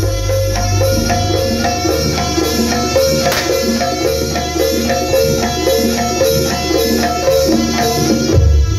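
Jaranan accompaniment music: a fast, repeating figure of short struck pitched notes in gamelan style over drums and a steady low bass.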